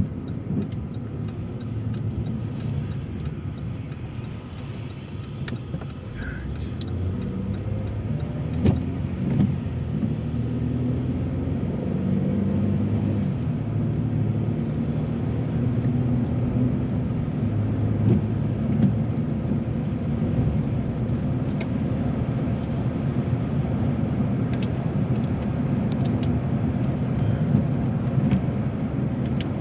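A car's engine and road noise heard from inside the cabin while driving: a steady low hum that grows louder over the first dozen seconds and then holds, with a few faint clicks.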